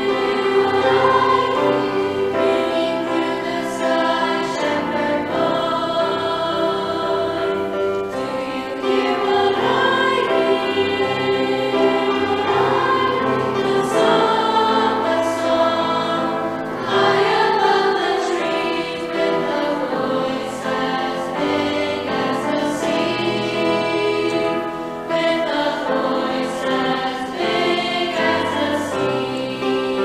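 A mixed choir of children and adults singing a Christmas song, accompanied by a grand piano.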